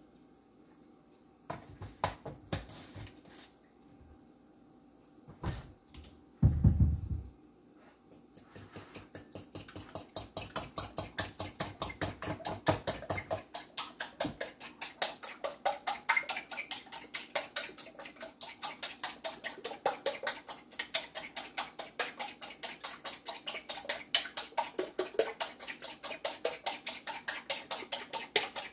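Eggs being beaten in a bowl: a utensil clicks rapidly and steadily against the bowl, several strokes a second, starting about eight seconds in. Before that come a few scattered knocks and one heavier thump.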